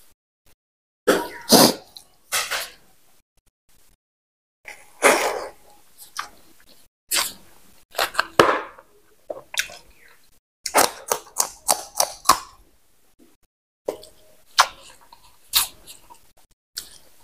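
Close-miked chewing and wet lip-smacking of a person eating rice and pork fat, in irregular bursts with a quick run of smacks around the middle.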